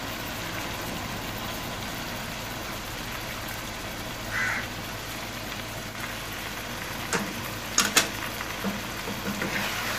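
Mutton frying in hot oil with onions and spices in an aluminium pot: a steady sizzle, with a few brief sharp clicks about seven and eight seconds in.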